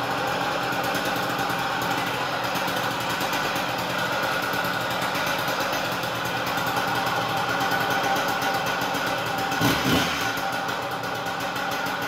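Stihl TS500i cut-off saw's fuel-injected two-stroke engine running steadily, with a brief louder blip about ten seconds in. It is running again after a no-start, once the ignition wire terminal pushed out of the module connector was reseated.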